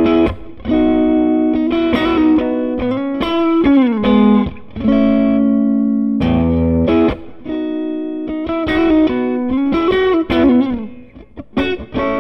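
Electric guitar, a Tokai Goldstar Sound with single-coil pickups, played through an SCW Audio Blackstone Overdrive, a Bluesbreaker-style pedal, into a combo amp: bluesy licks and chords with a light, clear overdrive. String bends about a third of the way in and again near the end, then a few quieter muted strokes.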